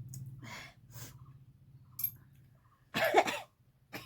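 Faint sniffing breaths, then a loud, short human sneeze about three seconds in, forced by tickling the inside of the nose.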